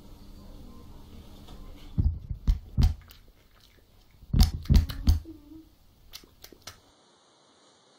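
Heavy thumps and knocks close to the microphone in two bunches, about two seconds in and again about four and a half seconds in, then a few lighter clicks.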